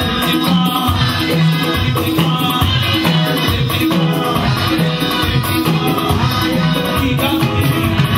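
Lively church band music with a steady beat, driven by a shaker and drums over a repeating bass line.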